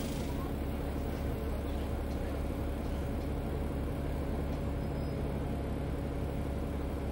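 Isuzu Citiport 18 articulated city bus, its diesel engine idling steadily at constant revs with a deep, even hum.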